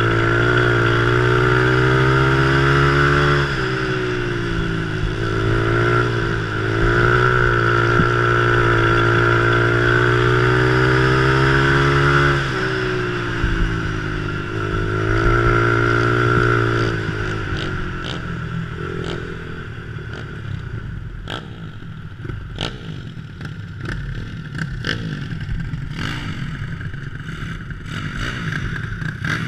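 Small single-cylinder engine of a vintage three-wheeler ATV racing hard on a dirt oval, its revs rising and dipping again and again through the laps. After about seventeen seconds the revs fall away to a low, uneven running with scattered clicks and rattles as the trike slows and stops.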